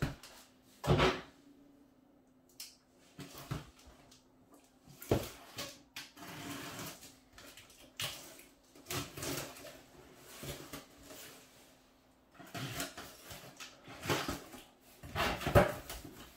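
Cardboard shipping boxes being handled and opened by hand: irregular knocks, scrapes and rustles of cardboard and packaging, with the loudest knocks about a second in, about five seconds in and near the end.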